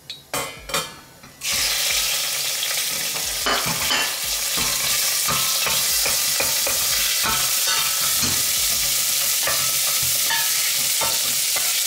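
Cubed pork sizzling in hot oil in a stainless steel pot, the sizzle starting suddenly about a second and a half in, when the meat hits the oil, and running on steadily. A wooden spatula knocks and scrapes against the pot as the pork is stir-fried.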